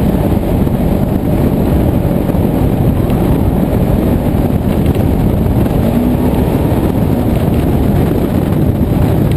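Polaris RZR side-by-side under way across sand, its engine running steadily, heard from the open cab with wind noise on the camera.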